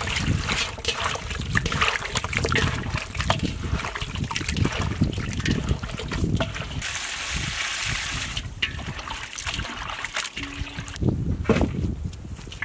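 Hands mixing raw chicken pieces with turmeric in a large metal pot: irregular wet squelching and slapping of the meat. A short hissing stretch comes about seven seconds in.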